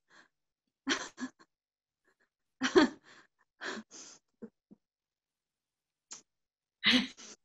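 Soft breathy laughs and exhalations from two women, in several short bursts with silence between them, the loudest near the end.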